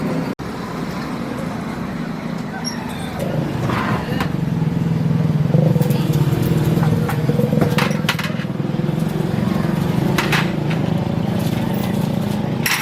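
A steady low engine-like drone, with a few short sharp clicks or taps at irregular moments.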